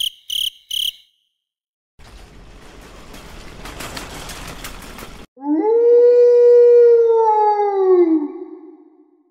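A run of separate sound effects: three short high chirps, then a few seconds of faint insect-like chirring, then one long howl that rises quickly and slowly falls away.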